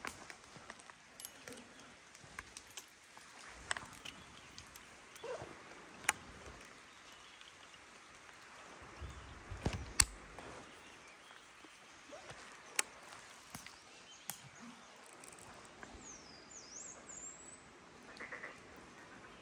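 Outdoor ambience with a steady background hiss, broken by scattered sharp clicks and knocks, the loudest about halfway through. A bird gives a short run of chirps a few seconds before the end.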